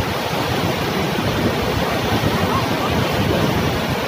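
Muddy floodwater rushing down a swollen river in flash flood, a steady loud rush of water with no let-up.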